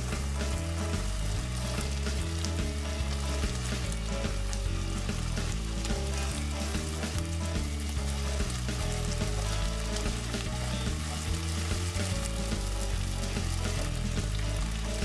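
Chicken pieces sizzling as they fry in a nonstick wok, stirred with a wooden spatula. A steady hiss throughout, over background music with changing low bass notes.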